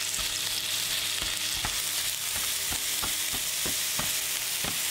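Vegetarian mince sizzling in hot oil on high heat in a non-stick frying pan, with a slotted spatula tapping and scraping the pan about two or three times a second as it breaks the mince into crumbs.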